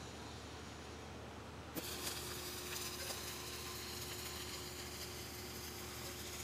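Flux-cored arc welding: the arc strikes suddenly about two seconds in, then burns with a steady hiss and a faint steady tone under it as the bead is laid.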